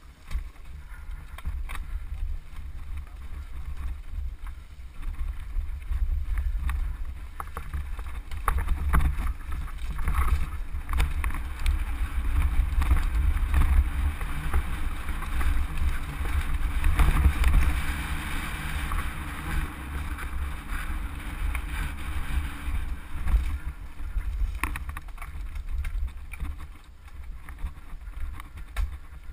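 Wind buffeting the microphone of a camera riding on a mountain bike descending a rocky trail, with a constant low rumble and the clatter and crunch of tyres and bike over stones. It grows louder toward the middle as the pace picks up, then eases near the end.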